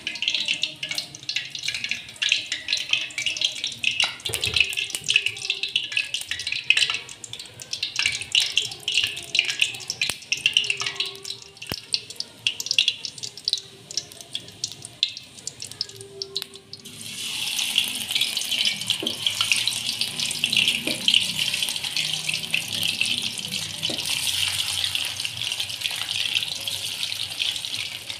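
Hot cooking oil in a wok crackling and spitting in irregular ticks; about seventeen seconds in, food goes into the oil and it turns to a dense, steady sizzle of frying.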